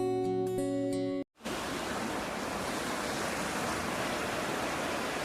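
Acoustic guitar music stops about a second in; after a brief silent cut, a steady, even rushing noise of outdoor sea surf and wind follows.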